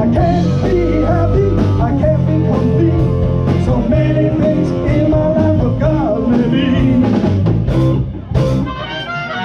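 Live blues-rock band playing: electric guitars, bass and drum kit with a singing voice. About eight seconds in the full band drops away after a single loud hit, leaving thinner held notes.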